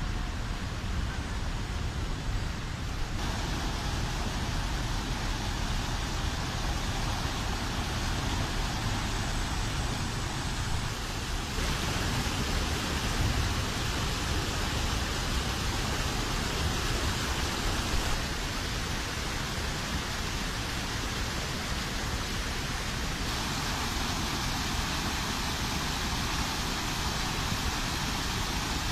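Stormwater runoff rushing across the beach and spilling over sandbags: a steady rushing noise whose tone shifts abruptly every few seconds.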